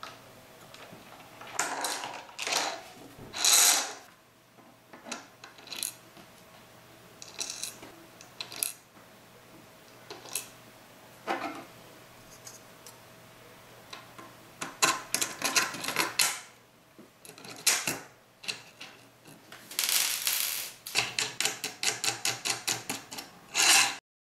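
Small metal bolts, nuts and washers clicking and clattering against a clear acrylic mounting plate and a controller circuit board as they are fitted together. The clicks and knocks come at irregular times, with quick runs of ticks in the middle and again near the end.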